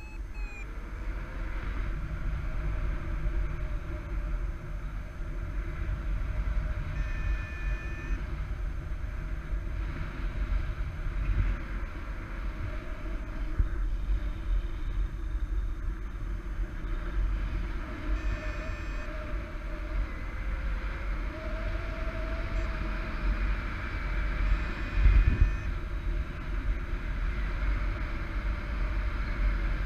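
Wind rushing over an action camera's microphone in paraglider flight, with a louder buffet late on. A paragliding variometer gives a few short high electronic beeps, the climb signal of a thermal.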